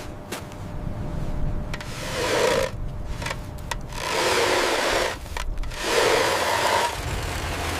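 Three long rasping scraping strokes, about a second each, with lighter scraping and rustling between them.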